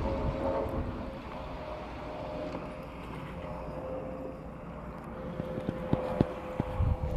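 An engine running steadily, a low rumble with a constant hum over it, with a few light knocks near the end.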